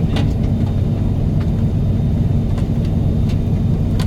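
Steady low mechanical hum and rumble with a few faint scattered ticks.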